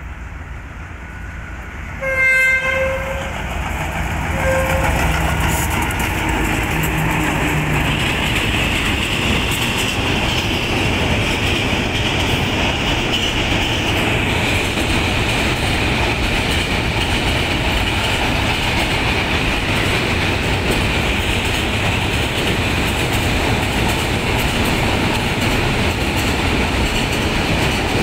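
KTM Class 29 diesel locomotive hauling a container freight train sounds its horn, a blast of about a second about two seconds in and a short toot a couple of seconds later, then its engine passes. After that come the steady rumble and clatter of the loaded container wagons rolling past on the rails.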